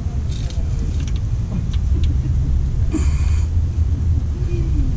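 Steady low rumble, with a few light clicks and a short metallic rattle about three seconds in, as a gloved hand turns the loosened oil drain plug out of a Ford F-150 EcoBoost's oil pan.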